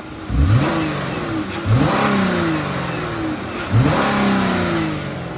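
A 2015 Dodge Grand Caravan's 3.6-litre Pentastar V6 revved three times in quick succession, each time climbing sharply and then falling back toward idle. It sounds good, a healthy-running engine.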